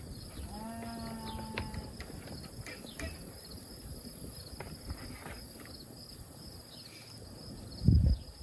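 A sheep bleats once, a pitched call lasting about a second, over scattered small clicks and a steady high insect chirring. A brief loud low thump comes near the end.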